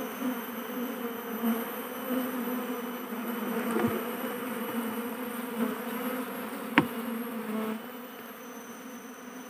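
A colony of Asian honeybees (Apis cerana) buzzing steadily as the bees cluster around their queen at a hive box, the buzz rising and falling and easing a little near the end. A single sharp tap sounds about seven seconds in.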